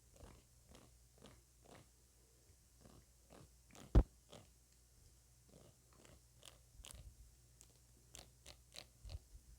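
ASMR mouth sounds close to the microphone: irregular wet clicks and crackles, with one much louder sharp knock about four seconds in.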